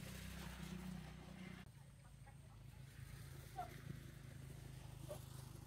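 Faint chicken clucks: a few short, separate calls over a low steady background hum.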